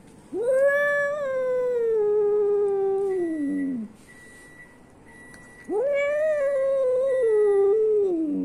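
Domestic cat yowling twice, each long yowl lasting about three seconds, rising at the onset, held, then sliding down in pitch at the end: the warning yowl of an angry cat in a standoff with another cat.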